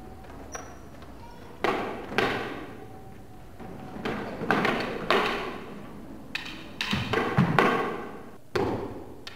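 Eskrima sticks and footwork in a double-stick form: a series of about nine sharp clacks and thuds in uneven clusters, each echoing in the hall.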